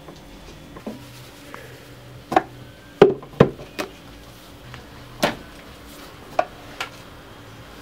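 Wooden chimney-cake (kürtőskalács) spit knocking against wood in about eight sharp, irregular knocks, the loudest three in quick succession around the middle.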